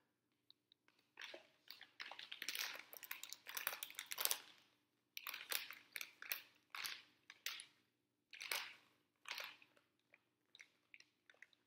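Crinkly candy packet being handled and squeezed in the hands while someone searches for where it opens: irregular bursts of crackling, with short pauses between them.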